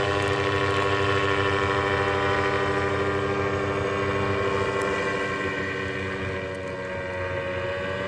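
Paramotor engine and propeller droning steadily in flight, easing slightly in loudness and pitch near the end.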